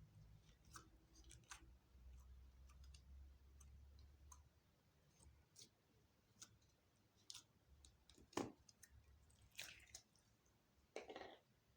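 Faint sticky clicks and small pops of slime being mixed and pulled by hand, with a louder knock about eight and a half seconds in and a short squish near the end.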